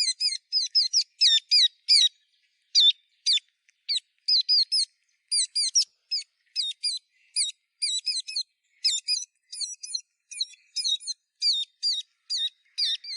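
Young brown-breasted bulbuls chirping in quick, repeated short notes, several a second, with a brief pause about two seconds in. They are feeding from a hand.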